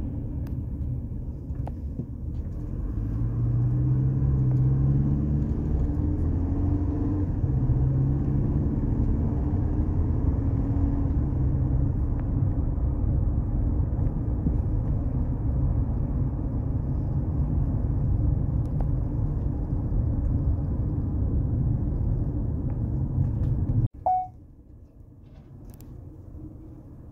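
Car engine and road rumble heard inside the cabin while driving, the engine's pitch climbing in a few steps as the car accelerates, then running steadily. Near the end the sound drops abruptly to a much quieter low hum.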